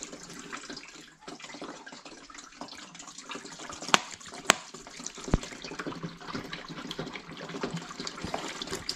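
Water being poured into the water tank of a portable evaporative air cooler, a steady splashing trickle, with two sharp clicks about four seconds in.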